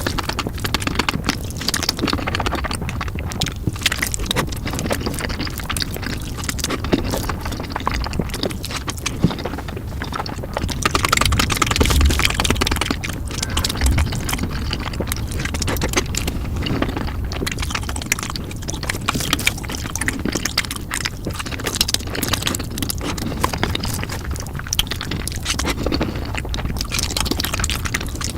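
Noodles being eaten in big bites and played at four times speed: a dense, unbroken run of wet chewing and slurping clicks and smacks.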